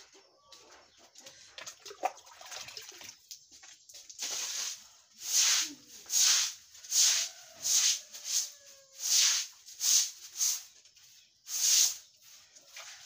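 Grass broom swishing across wet concrete ground in repeated sweeping strokes, faint at first, then loud and regular from about four seconds in, a little more than one stroke a second.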